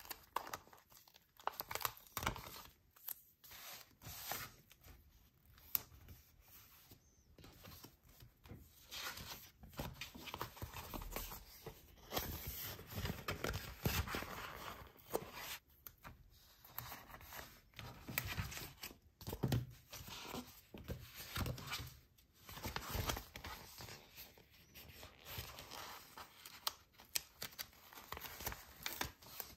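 Paper stickers being peeled off their backing sheet in short, irregular tearing strokes, with rustling and crinkling of the paper sheets between peels.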